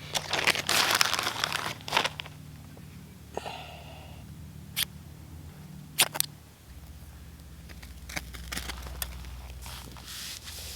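Rustling and crunching noise, loudest in the first two seconds, followed by scattered sharp clicks and knocks.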